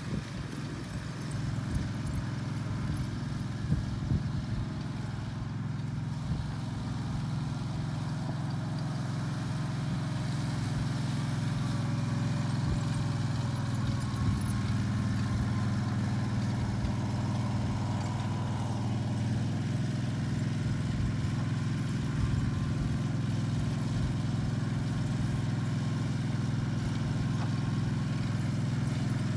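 Utility vehicle's engine running steadily as it drives slowly around the arena, with an even low hum.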